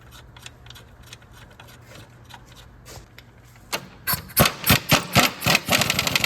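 A few faint clicks, then a power impact wrench on a sway bar link nut. About four seconds in it runs in several short trigger bursts, then settles into steady rapid hammering near the end.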